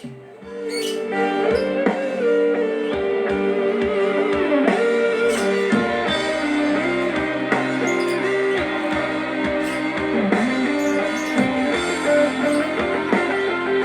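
Guitar-led music with drums played through a miniature sound system of small speaker boxes with 3-inch subwoofers during a sound check, coming in about half a second in and then playing steadily.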